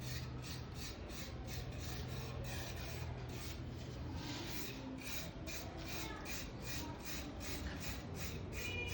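Rhythmic rasping strokes, about three a second, like hand work rubbing or filing a surface. A low steady hum underneath fades out about four seconds in.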